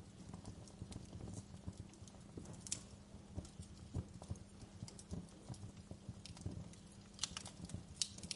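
Wood fire crackling, with irregular small snaps and pops and a few sharper pops near the end.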